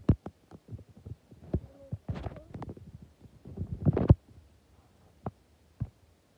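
Irregular knocks, clicks and low thumps, densest about two seconds in and again around four seconds in, then only two isolated clicks.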